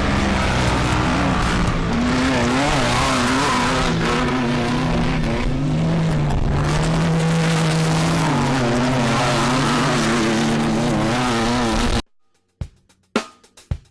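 Off-road race car engine running hard, its pitch wavering up and down with the throttle over a dense hiss. It cuts off abruptly about twelve seconds in, and a few sharp hits follow.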